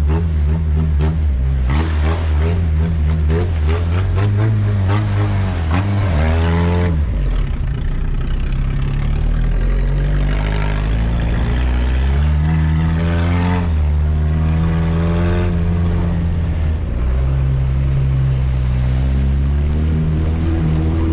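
Peugeot 106 petrol car engine heard from inside the cabin while it drives a muddy off-road track. The revs climb and drop back several times, with a sharp fall about seven seconds in.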